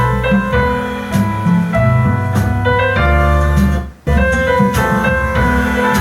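Keyboard-led music with heavy bass and a steady beat, played back over a Pioneer HTP-072 5.1-channel home theatre system. It drops out briefly about four seconds in, then starts again.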